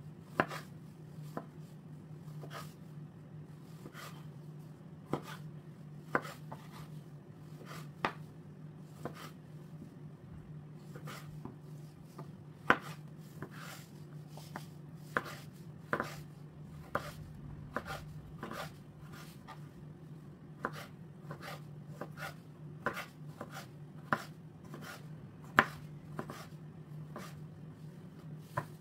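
Kitchen knife cutting cherry tomatoes and then a small pickled gherkin on a wooden cutting board. The blade knocks sharply and irregularly on the board, coming faster in the second half, over a steady low hum.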